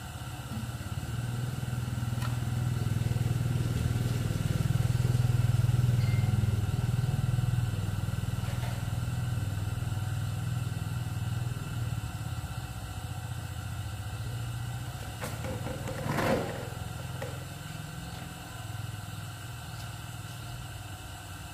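Motorcycle engine running, growing louder over the first few seconds and then slowly fading, with a short sharp knock about 16 seconds in.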